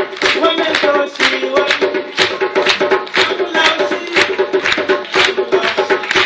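West African drum music: a hand drum struck in a quick, steady rhythm over a held low tone, with some singing in the first seconds.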